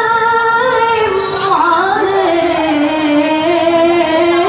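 Young female voices singing a slow, ornamented banjari sholawat melody without drums, the held notes gliding and drifting gradually lower.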